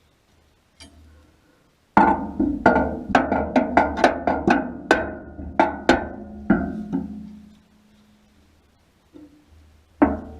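Hammer blows on the steel of a feeder bucket. There is a light tap, then about a dozen hard strikes at roughly two a second, with the steel ringing on briefly after the last, and one more strike near the end.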